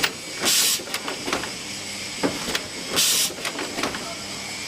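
Automatic chain welding machine cycling, with a short hiss about every two and a half seconds and clicks and knocks between.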